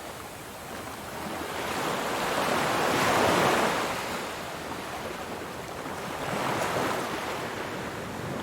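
Open-ocean waves rushing and washing in swells, with wind on the microphone. The surge builds to a peak about three seconds in and again near seven seconds.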